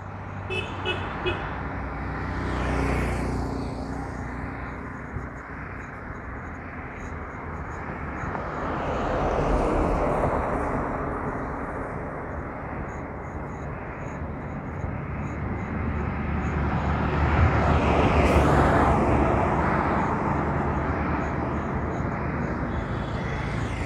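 Road traffic passing by, a school bus and a truck among the vehicles: engine rumble and tyre noise that swell and fade three times, loudest in the later half.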